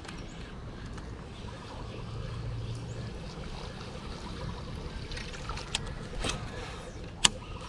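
Water moving gently around a fishing kayak, with three sharp clicks or knocks in the last two seconds.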